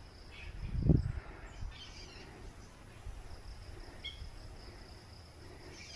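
Insects keep up a steady, high, faint buzz while a few birds give short, thin chirps. A low thump comes about a second in.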